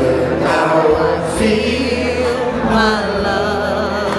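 Live 70s soul music: a band playing sustained chords and bass under sung vocals.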